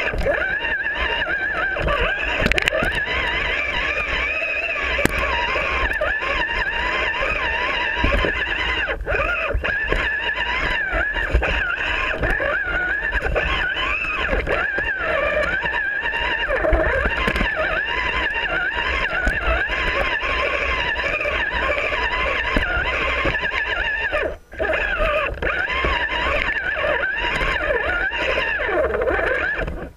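RC rock crawler's electric motor and gears whining, the pitch wavering up and down with the throttle, with occasional knocks as it climbs over rocks. The whine stops for a moment about three quarters of the way through.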